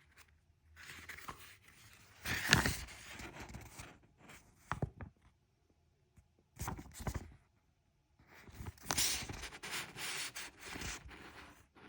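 Paper pages of an instruction manual being turned and handled, in irregular bursts of rustling with a few light knocks and short pauses between them.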